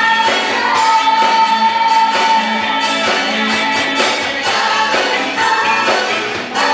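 Live band playing with vocals over timbales, drum kit and electric guitar, the percussion keeping a steady beat. About a second in, a long sung note is held for around two seconds.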